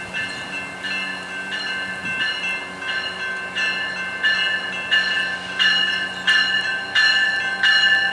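A railway warning bell ringing at a steady pace, about three strokes every two seconds, growing louder in the second half as the train comes up to the crossing, over the low steady hum of the approaching passenger train.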